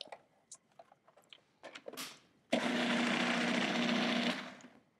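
A food processor's motor runs for about two seconds, blending a thick seed-and-greens pesto, then stops abruptly. A few light clicks and knocks come before it.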